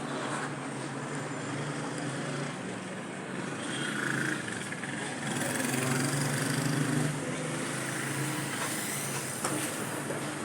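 Town-centre street traffic: vehicle engines running amid a steady mix of street noise, with a low hum that grows a little louder partway through.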